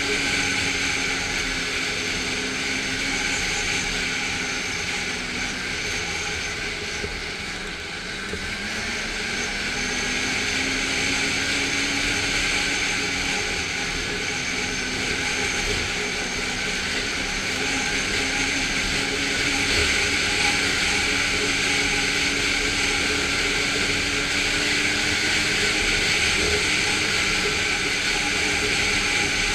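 Snowmobile engine running at cruising speed along a snow trail, with a steady rush of noise. About eight seconds in the engine note drops as it slows, then climbs back up as it speeds up again.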